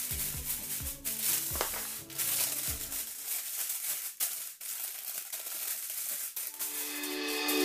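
Aluminium foil crinkling and crackling as hands press and crimp it down around the edges of a baking tray. Background music plays for about the first three seconds, drops out, and comes back near the end.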